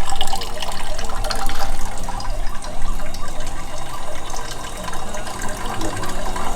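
Water running steadily, like liquid pouring or draining.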